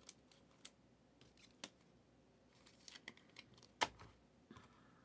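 Faint clicks and short rustles of glossy Prizm football trading cards being slid and flipped off a stack by hand, with one sharper click a little before four seconds in.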